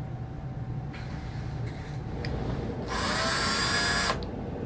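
Small handheld cordless drill-driver running in one burst of about a second, its whine rising as it spins up, after some quieter handling sounds.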